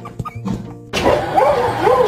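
Background music with steady tones, then from about a second in a dog vocalising over it in repeated pitched calls that rise and fall.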